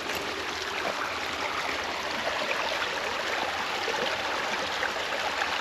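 Creek water flowing, a steady rush of running water.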